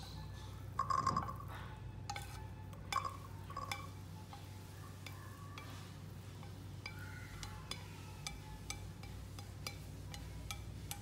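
Fried rice being scraped out of a ceramic-coated frying pan into a ceramic bowl: light clinks and ticks of a utensil against the pan, a few louder clinks in the first few seconds, over a low steady hum.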